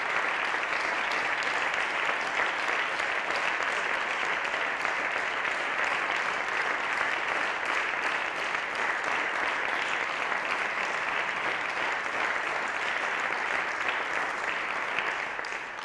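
Steady applause from a small group of parliament members standing and clapping in the chamber, dying away near the end.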